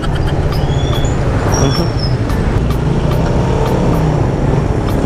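Suzuki Raider 150 carb's single-cylinder four-stroke engine running steadily under way, heard from the rider's seat with traffic noise around it.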